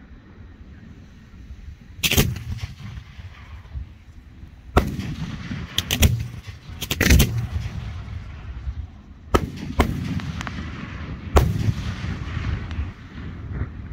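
Aerial firework shells bursting overhead in a string of about nine sharp booms, some in quick pairs. Each boom is followed by a rumbling echo.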